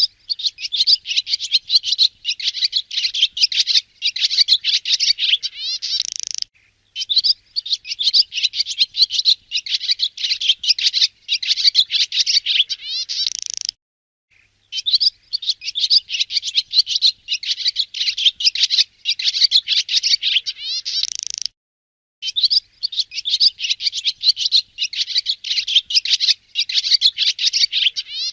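Swallow song: a fast, dense twittering chatter in bouts of about six seconds, each ending in a quick buzzy rattle, with short pauses between bouts, four bouts in all.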